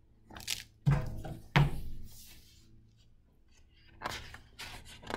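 A hardcover picture book handled on a wooden table: a soft brush, then two solid thumps about a second in and half a second apart as the book is set down. Near the end comes a run of paper rustling as its pages are turned.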